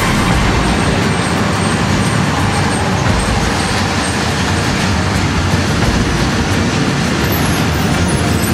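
A freight train of covered sliding-wall goods wagons rolling past close by: a steady, loud noise of wheels running on the rails.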